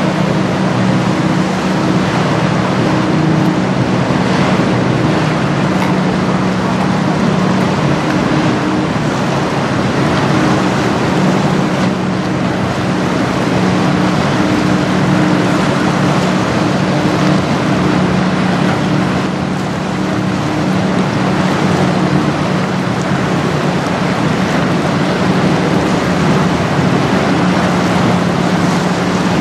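The 1982 tugboat Michigan's diesel engines give a steady low drone as the tug pushes its barge past, under a loud rush of wind and choppy water.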